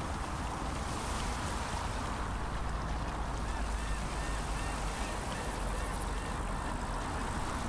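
Steady rushing noise with a low rumble, and a quick run of short quacking calls from a bird about halfway through.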